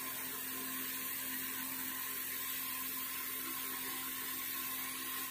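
Steady whir with hiss and a faint hum, unchanging, from a small motor; it cuts off suddenly at the end.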